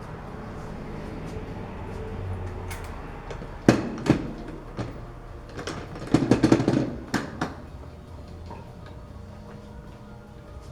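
Knocks and clanks of a BMX rear wheel being handled and set up in a truing stand: two sharp knocks about a third of the way in, then a quick run of clatter a little past halfway.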